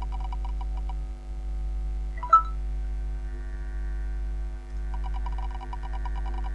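Tick sound effect of an online spinning prize wheel: rapid ticks that slow and stop about a second in, a short bright beep-like chime about two seconds in as the result comes up, and the ticking starting again near the end as the wheel is spun once more. A steady low mains hum runs under it.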